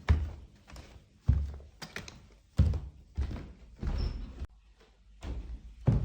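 Heavy footsteps, a slow series of low, dull footfalls about two-thirds of a second apart, pausing briefly about four and a half seconds in before starting again.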